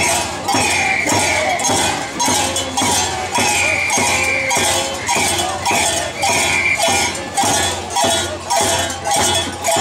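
Live Andean carnival music: a sharp, metallic-sounding percussion beat struck about twice a second, with a high melody of short held notes over it.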